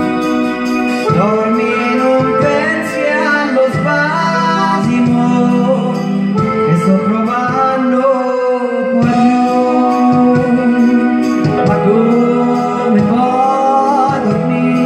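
A man singing a slow serenade into a microphone over held keyboard chords, phrase after phrase.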